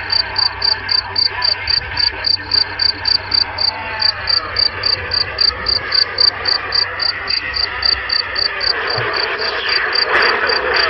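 An insect chirping in a steady high pulse, about four chirps a second, over the even hiss of a CB radio receiver left open on a channel.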